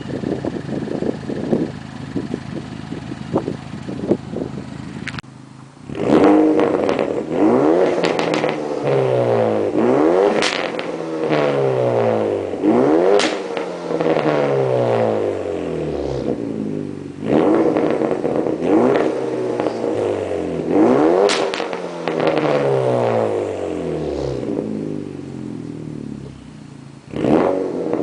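2009 Chevrolet Cobalt SS's turbocharged 2.0-litre four-cylinder engine with a catless downpipe, first idling with a light rapid ticking. From about six seconds in it is revved again and again, each rev climbing and then falling back, with sharp crackles at some of the peaks.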